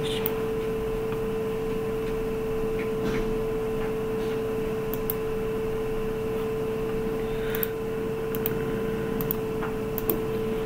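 Computer keyboard keys clicking a few times, scattered, over a steady background hum.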